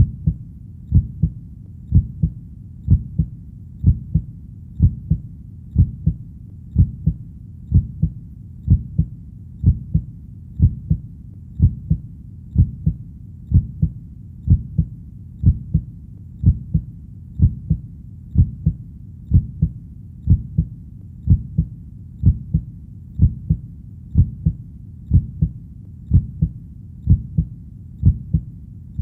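A human heartbeat beating steadily at about one beat a second. Each beat is a low lub-dub double thump.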